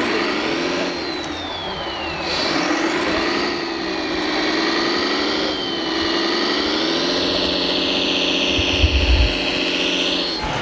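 Radio-controlled model Volvo tipper truck driving through sand: its electric drive motor and gearing whine, wavering and gliding up and down in pitch with the throttle, then holding steadier over the last few seconds. A short low rumble comes near the end.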